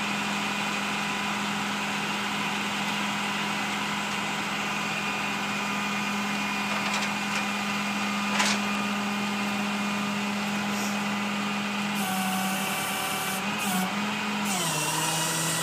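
Flatbed tow truck's engine running with a steady, pitched hum. There is a short knock about eight seconds in; the sound shifts about twelve seconds in, and its pitch drops near the end.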